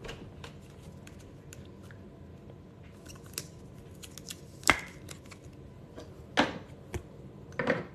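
A trading card being slid into a rigid plastic toploader and handled, with faint scraping and a few sharp plastic clicks and taps, the loudest a little under five seconds in.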